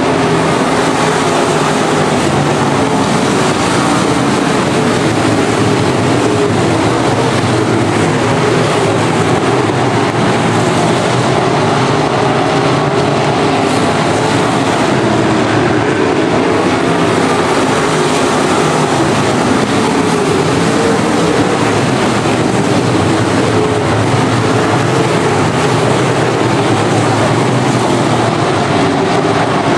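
A pack of IMCA Modified dirt-track race cars' V8 engines running hard at racing speed. Loud, dense, steady engine noise, its pitch wavering as the cars pass through the turns.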